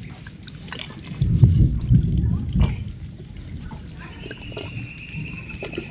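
A cow and her calf drinking water from a concrete trough, slurping and sucking at the surface. A louder stretch of low rumbling comes between about one and three seconds in.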